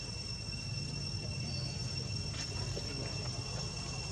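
Insects droning in a steady high-pitched note over a low background rumble.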